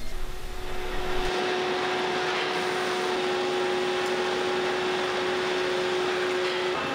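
Veneer dryer line running: a steady machinery noise from its circulating fans and roller conveyors, with a steady humming tone. The sound shifts character about a second in, and the hum stops just before the end.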